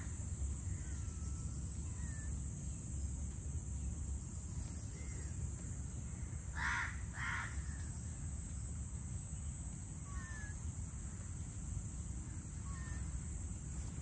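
A crow caws twice, close together about halfway through, over a steady high-pitched insect drone, with a few faint short bird whistles scattered through.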